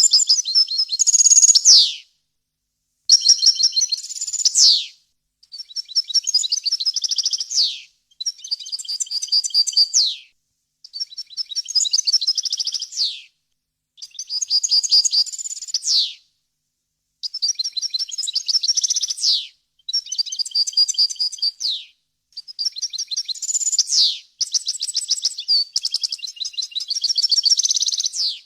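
European goldfinch singing in a string of phrases of about two seconds each, separated by short pauses. Each phrase is a quick high twitter of trills and buzzy notes that ends in a falling slur.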